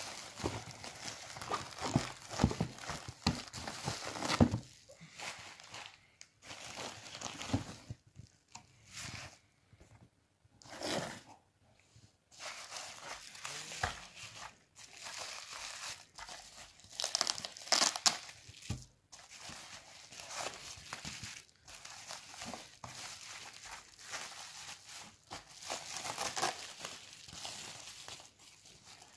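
Bubble wrap being handled and pulled apart by hand, crinkling and crackling irregularly, with a few short pauses near the middle.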